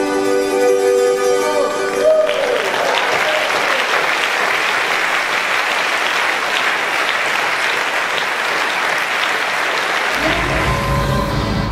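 Music ends on a held chord about two seconds in, and then a large audience applauds steadily. Near the end, new music with a heavy bass line starts.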